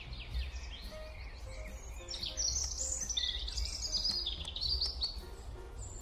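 Small birds chirping and twittering in quick, high runs, loudest from about two seconds in, over a low steady hum.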